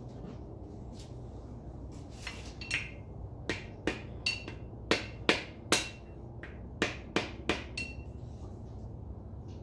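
Dead blow hammer tapping the main bearing caps of a 5.3 L LS engine down onto their seats in the block: about a dozen sharp taps in two runs, a few with a short metallic ring.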